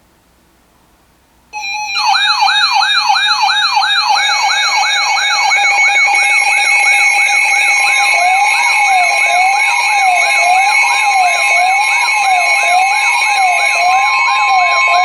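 Layered electronic siren and alert tones start abruptly about a second and a half in: a fast repeating sweep about twice a second over steady tones. About halfway through, a slower wail rising and falling about once a second and a steady high tone join in.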